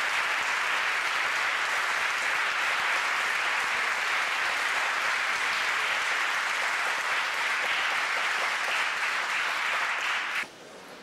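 Large audience applauding steadily, cutting off abruptly near the end.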